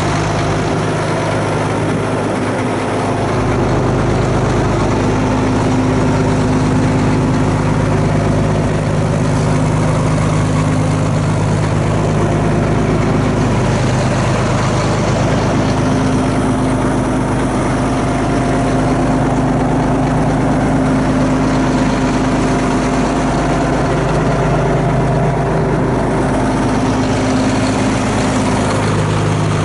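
Caterpillar D6B crawler dozer's diesel engine idling steadily, a little louder from about three seconds in.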